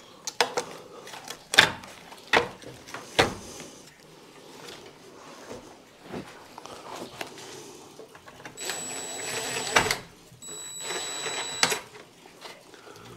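Several sharp knocks and clicks of handling, then two short runs of a cordless drill into the wall, each just over a second, with a high motor whine.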